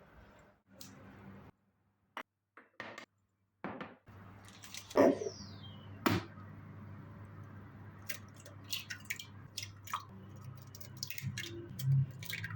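Irregular short clicks and knocks of objects being handled, the loudest about five seconds in and a quick run of them in the last few seconds, over a faint low hum.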